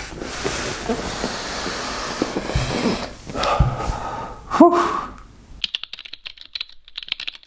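A short rising vocal sound from a man over handling noise, then about two seconds of rapid keyboard typing clicks: a typing sound effect.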